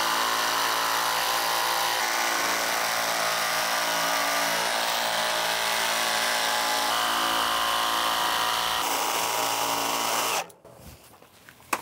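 Milwaukee Fuel jigsaw running steadily as its blade cuts a notch out of a luxury vinyl plank, then stopping suddenly about ten and a half seconds in.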